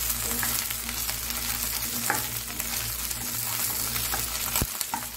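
Cut okra sizzling in hot oil in a nonstick pan while a spatula stirs it, with a couple of sharp clicks of the spatula against the pan, about two seconds in and near the end.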